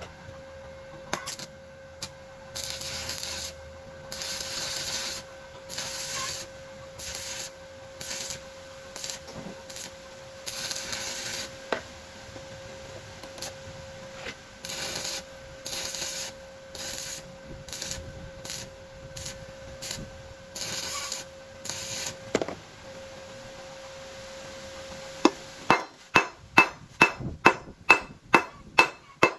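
Hand file rasping on a steel bar in uneven strokes, each about half a second to a second long, over a faint steady hum. Near the end, a hammer starts striking metal in quick even blows, about three a second.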